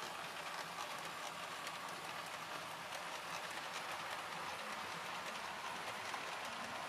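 Model train running on track: a Piko Hobby H0 electric locomotive pulling a string of freight wagons, giving a steady whir with faint, rapid clicking of wheels on the rails.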